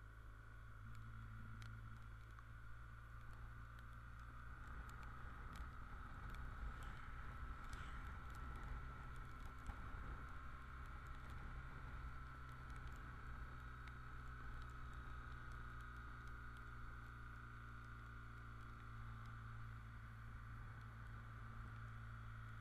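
BMW R1200GS boxer-twin motorcycle riding at a steady pace on a wet road: a faint, steady low engine hum with a steady higher tone over it and scattered light ticks.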